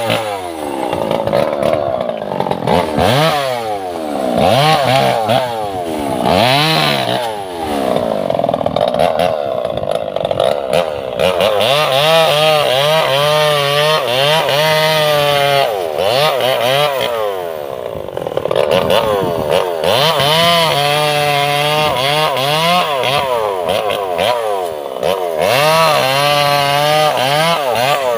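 Chainsaw cutting through sengon laut logs. In the first seconds the engine is revved up and let down again and again; from about twelve seconds in it holds long stretches at high revs, the pitch wavering as the chain bites into the wood.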